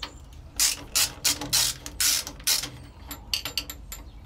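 Metal hand-tool work at the gearbox of a narrowboat's BMC 1.5 diesel: a quick run of short scraping strokes, then several sharp metallic clicks about three seconds in. The gearbox is being opened to check its transmission fluid level, which the owner suspects is low because drive is slow to engage.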